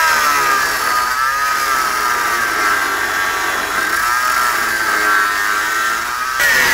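Angle grinder cutting through the steel of a car's front frame, its whine wavering up and down in pitch as the disc bites and loads.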